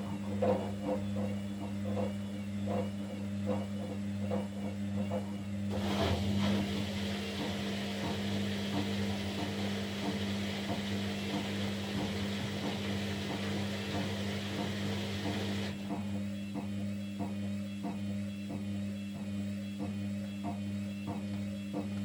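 Kunft washing machine running its quick 15-minute cycle at 40 °C: a steady motor hum with soft knocks about twice a second as the drum turns the laundry. About six seconds in, a steady hiss joins it and stops about ten seconds later.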